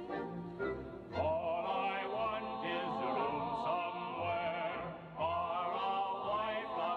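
Background music: a singer holding long notes with strong vibrato over accompaniment, pausing briefly about five seconds in.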